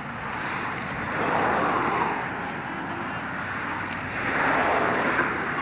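Road traffic noise, swelling twice as vehicles pass by.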